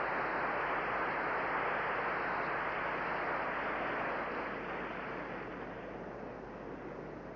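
Audience applauding, dying down about four or five seconds in.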